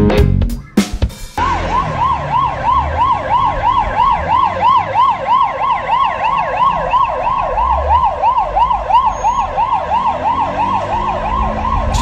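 Emergency-vehicle siren in a fast yelp, its pitch sweeping up and down about three times a second, starting about a second and a half in and running on.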